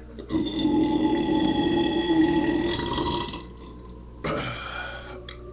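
A person belching loudly and at length, one long burp of about three seconds. A shorter sound follows about a second later and fades away.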